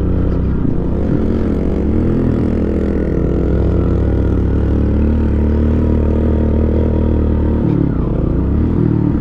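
Motorcycle engine running at a steady speed over a rough dirt track, heard from the rider's seat. About three-quarters of the way through the engine note drops briefly, then picks up again.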